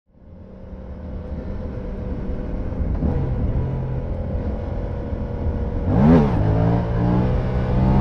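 Yamaha MT-07's 689 cc parallel-twin engine running through an Akrapovic full exhaust system, fading in at the start. The revs swing briefly about three seconds in and rise and drop back sharply about six seconds in.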